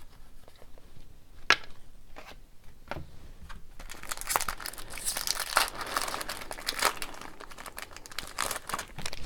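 A 2017-18 Upper Deck SP Authentic hockey card pack wrapper being torn open and crinkled: a few sharp clicks in the first three seconds, then dense crinkling from about four seconds in.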